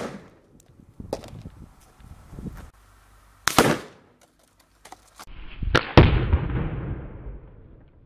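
Pressurised plastic drinks bottles, holding flour at 100 psi, bursting when shot: a faint crack about a second in, a sharp bang about three and a half seconds in, then a louder bang near six seconds followed by a long fading rush.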